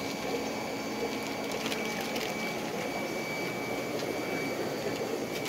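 Steady hum and hiss of aquarium air pumps and filters, with a thin high-pitched whine through the middle.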